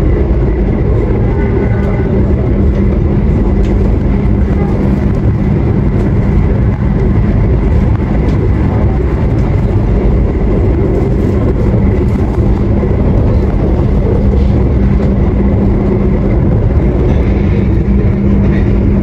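Inside a stainless-steel executive passenger coach of a train running at about 115 km/h: a steady, loud rumble of wheels on rail with a constant hum underneath.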